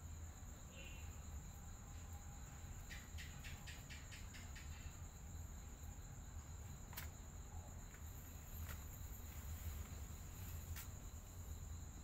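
Faint background noise with a steady high-pitched whine. About three seconds in comes a two-second run of rapid ticks, about five a second, and later three single sharp clicks.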